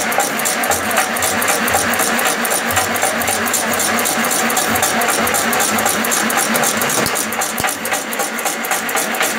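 Automatic incense stick (agarbatti) making machine running, with a fast, even clatter as it feeds bamboo sticks through the paste head.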